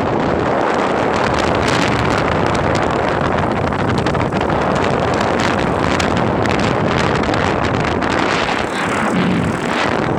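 Steady wind rushing over the microphone, with the road noise of a moving vehicle.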